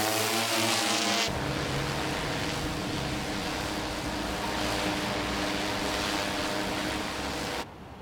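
Multirotor delivery drone's propellers humming steadily, with a held buzzing tone. The sound starts suddenly, changes abruptly about a second in, and drops to a quieter hum near the end.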